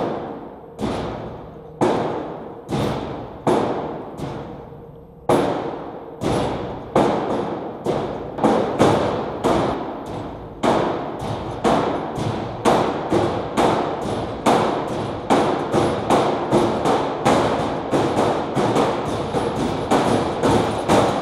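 Percussive soundtrack of heavy drum-like hits, each fading out, in a steady beat that speeds up from about one hit a second to about two a second, over a faint steady tone.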